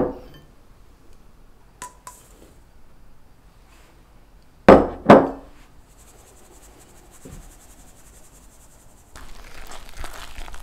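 A heavy glass Pyrex measuring cup is set down on a wooden table with a sharp knock, followed a couple of seconds later by a light glass clink. Two loud knocks about half a second apart come next, then a faint hiss of flour sifting through a mesh sieve into a glass bowl. From about nine seconds in, a spatula scrapes and stirs crumbly whole-wheat pancake batter in the glass bowl.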